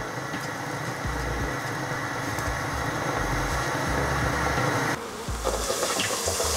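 A steady low hum, then about five seconds in a sudden sizzling of hot oil as a breaded croquette deep-fries, growing louder toward the end.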